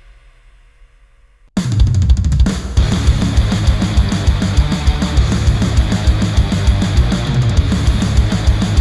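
Recorded music playback through Sennheiser headphones: after a quiet first second and a half, a heavy rock track starts abruptly with a full drum kit, rapid kick drum hits and cymbals.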